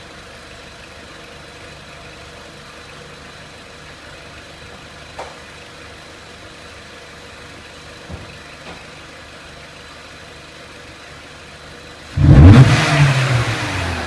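Renault Clio 1.6 petrol engine idling steadily, with a few faint clicks. About twelve seconds in, it is revved sharply by a throttle blip, then the revs fall back.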